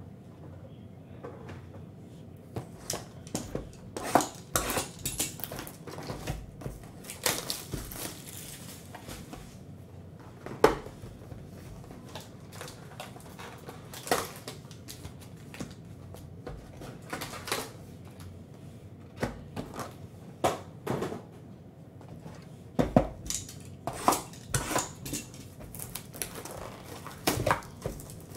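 Cardboard hobby boxes and foil trading-card packs being handled: a string of sharp taps, knocks and crinkles, with the plastic shrink wrap of a box crinkling near the end.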